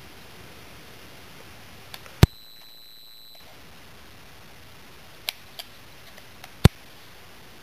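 Clicks from handling a Canon PowerShot G12's bottom battery compartment: a loud sharp click about two seconds in, followed at once by a steady high beep lasting about a second, then a few light clicks and a second loud click near the end as the door is worked open and the battery pulled.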